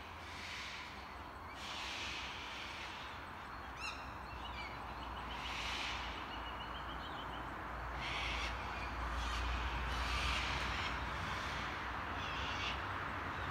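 Laughing kookaburras giving short, scattered calls, several times over, including a quick run of repeated notes about six seconds in, over a low steady rumble.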